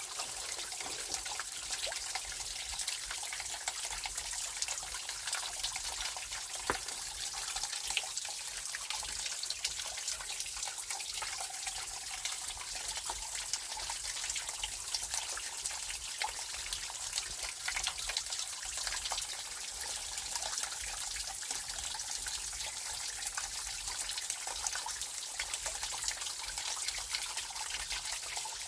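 Water of a partly frozen mountain stream trickling steadily, with many small ticks and splashes.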